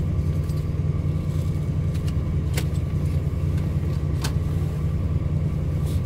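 Steady low rumble of a heavy downpour on the truck cab, with a few light clicks of parts being handled at the steering column.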